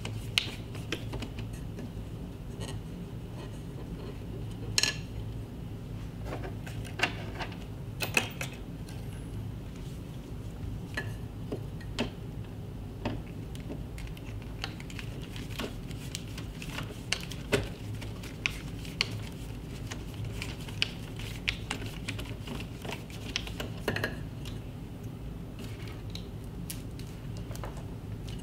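Scattered light clicks and taps of screws and a plastic TV stand bracket being handled and taken off the back of an LED TV, over a steady low hum.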